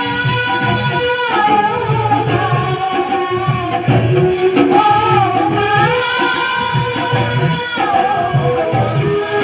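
Music: a song with long-held melody notes over a steady rhythmic drum beat.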